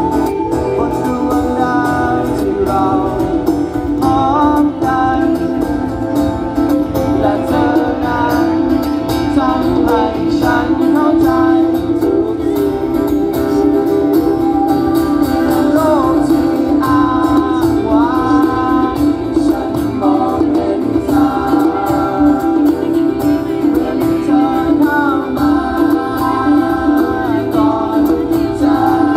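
Live rock band playing through a concert PA, with a lead voice singing over a steady wall of instruments.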